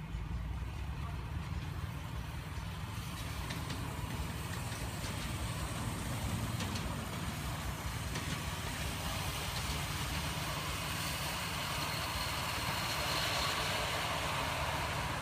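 Engine of a diesel-outline miniature railway locomotive running steadily as it hauls a train of passenger cars past, with a continuous low rumble.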